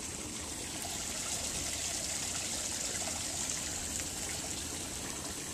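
Small rock waterfall trickling steadily into a garden pond, an even splashing hiss of falling water.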